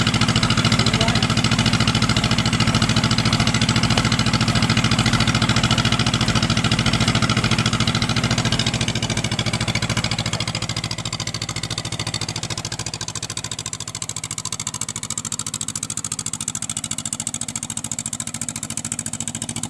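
Rice combine harvester's diesel engine running steadily as the grain-loaded machine crawls on its tracks across a plank bridge over a ditch. The engine gets quieter a little past halfway as the machine moves off.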